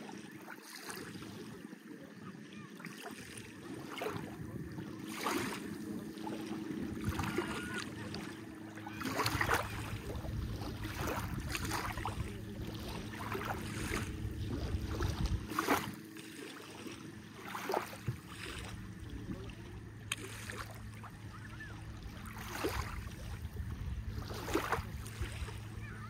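Small waves lapping and splashing irregularly against the shore, every second or two, over a steady low engine hum that grows stronger about a third of the way in.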